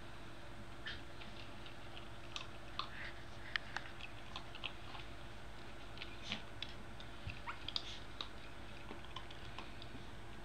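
Two-week-old puppies moving about, making many small irregular clicks and ticks with a few brief faint squeaks, over a low steady hum.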